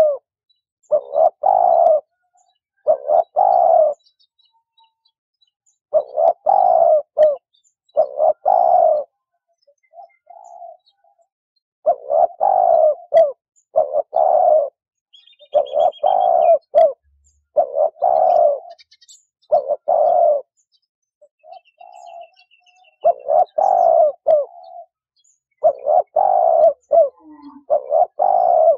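A dove cooing: repeated low coo phrases, each about a second long, in runs of three to five with pauses of a few seconds between runs. A faint high chirping of a small bird comes in briefly about halfway through.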